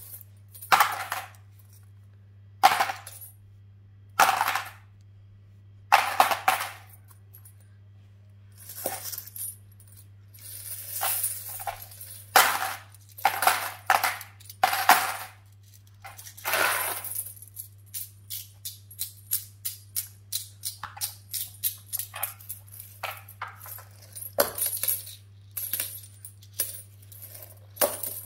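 Metal coins clinking as they are dropped onto a pile of coins and into a plastic bowl. In the first half come separate clinks every second or two; in the second half a quicker run of small clinks, about two a second.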